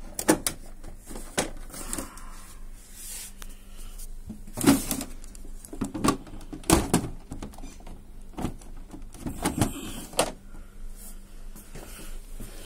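Plastic housing and cover parts of an HP Smart Tank 515 inkjet printer being handled and closed: about ten irregular sharp knocks and clicks, the loudest a little under five and about seven seconds in.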